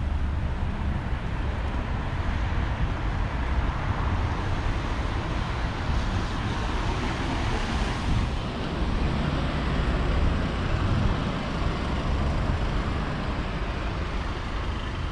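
City street traffic: cars passing, in steady tyre and engine noise over a deep low rumble. One vehicle swells louder and passes about halfway through.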